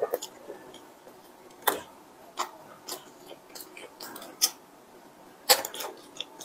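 The crisp crust of a cream-filled bun crackling as fingers tear it apart close to the microphone: sharp crisp snaps every half second or so, loudest a little over five and a half seconds in.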